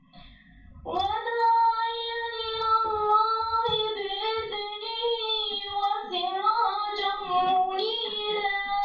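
Children singing an unaccompanied Sufi devotional chant: after a short pause, one long ornamented phrase with held notes starts about a second in.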